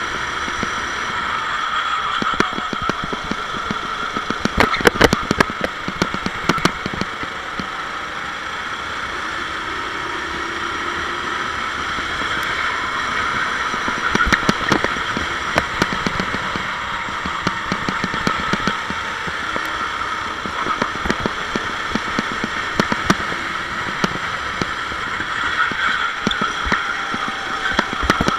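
Sodi SR4 rental kart's engine running at racing speed, its note rising and falling through the corners, heard from on board the kart. Sharp clatters come in clusters a few seconds in and again around the middle.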